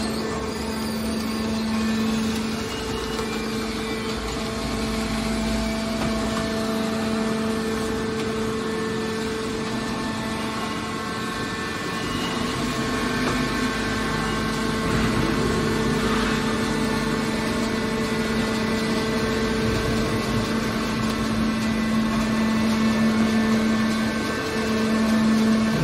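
Hydraulic power unit of a scrap metal baler running: an electric motor and hydraulic pump giving a steady droning hum whose pitch shifts slightly a few times.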